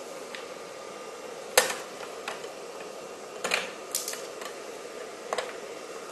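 Handling noise: a handful of irregular sharp clicks and light knocks of hard objects being picked up and set down, the loudest about a second and a half in, over a faint steady hum.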